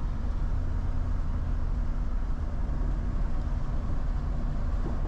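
Steady road and engine rumble inside a car cruising along the highway, with a faint steady hum over the low tyre-and-wind noise.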